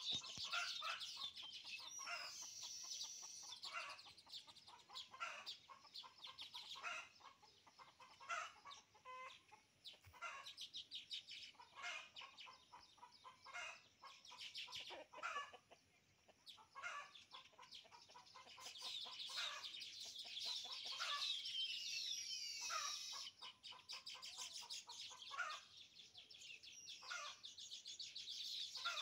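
Baya weavers chattering and giving wheezy trills, a busy flock of high calls that swells near the start and again in the last third, with shorter, lower calls repeating about once a second throughout.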